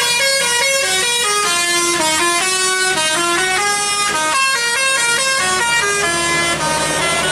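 A bus's Basuri telolet musical air horn playing a fast tune of quickly changing notes, one after another.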